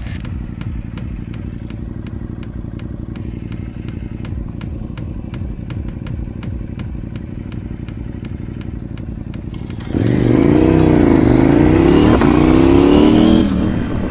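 KTM motorcycle engine idling at a standstill, with a light ticking about three times a second. About ten seconds in it revs hard as the bike pulls away, its pitch rising and falling through the gear changes, then eases off near the end.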